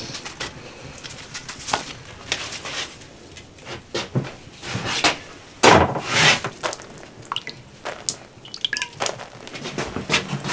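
Handling of freshly baked flatbread: soft pats and taps on the stove top, then a louder rustling scrape about six seconds in as a sheet is laid onto a stack of bread on a tray, with scattered small knocks and clicks.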